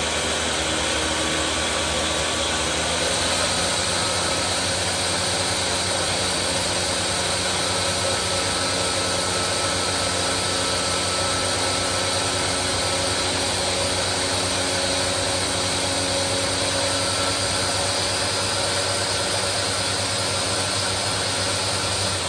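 Ninja countertop blender running steadily on its puree program, its motor spinning the blades through a jar of mixed fruit juice.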